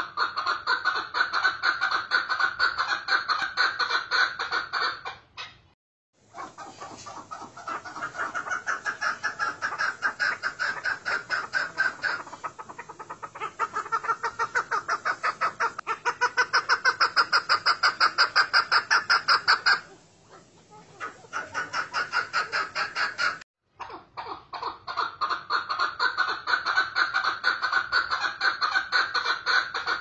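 Chukar partridge calling: long runs of rapid clucking notes, about five a second, louder and more even for a few seconds near the middle, broken off sharply twice.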